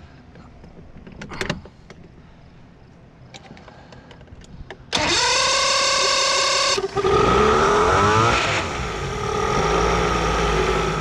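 1985 Mercury 90 hp two-stroke outboard being started: after a few faint clicks, the electric starter cranks for about two seconds about five seconds in, then the engine catches, revs up briefly and settles into a steady idle.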